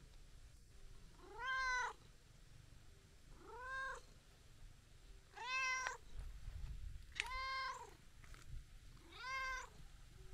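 Tabby-and-white cat meowing five times, about once every two seconds, each meow rising and then falling in pitch.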